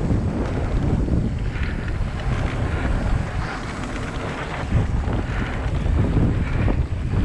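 Wind buffeting a GoPro's microphone as a Focus Jam mountain bike rolls fast down a dry dirt trail, over a steady, uneven rumble from the tyres on the hardpack.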